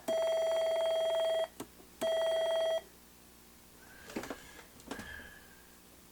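A steady electronic beep tone sounds for about a second and a half, stops, then sounds again for under a second. Two faint clicks follow.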